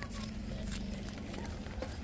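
Flip-flop footsteps slapping on a paved road as several people walk, in irregular light slaps, over a low steady hum.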